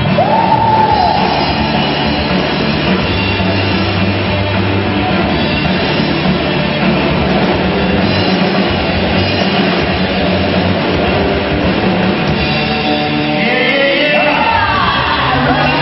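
Live rock band playing, with electric guitars and a drum kit. Sung vocals come in near the end.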